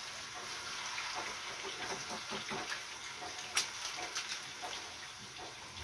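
Potatoes frying in oil in a pan, a steady sizzle, with light clicks of a utensil against the pan and one sharper click about three and a half seconds in.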